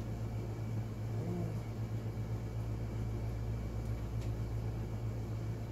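Steady low hum of room background noise, with a brief faint murmur of voice about a second in.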